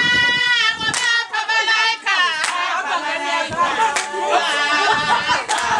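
Women singing loudly together, with a few sharp hand claps among the voices.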